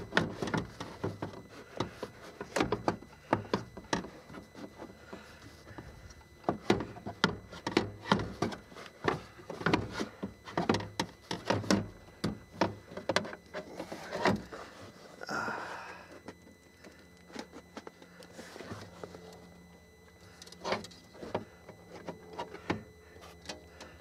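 Irregular clicks, knocks and scrapes of a loosened BMW E38 rear power window regulator, metal and plastic, being worked around inside the door cavity to free it. The knocks come thick and fast at first and thin out after about the middle, with a short scrape around then.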